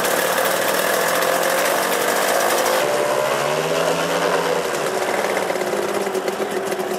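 Large combustion engine of a giant-scale radio-controlled Bücker Jungmeister biplane model running on the ground with its propeller turning: a loud, rapid, steady clatter, briefly rising and falling in pitch about halfway through.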